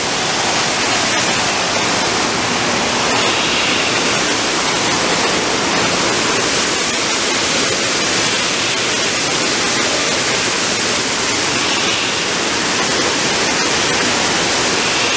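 Artificial waterfall cascading over rocks into a pool: a steady, loud rush of falling and splashing water.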